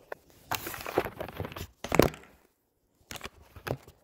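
Phone handling noise: fingers rubbing and brushing over the phone's microphone as it is gripped and moved, a rustling crackle, then two light knocks near the end.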